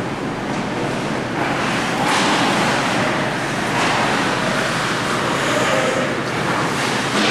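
Ice hockey game in an arena: a steady wash of crowd and rink noise, a little louder about two seconds in, with faint distant shouts.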